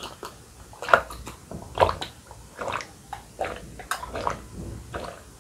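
A person drinking water from a glass in a run of gulps, about one swallow a second.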